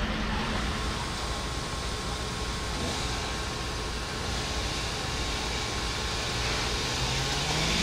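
Steady rumbling hiss of engines running, with one engine's note rising near the end.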